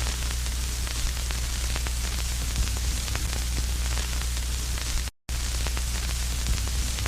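Steady static buzz, a hiss with a low hum under it, cut by one brief dead silence about five seconds in.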